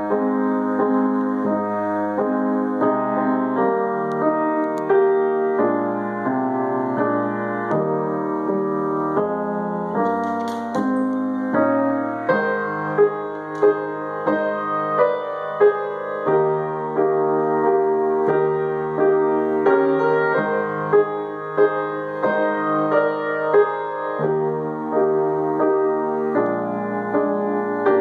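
Grand piano played solo: a chordal piece with several sharper accented notes in the second half.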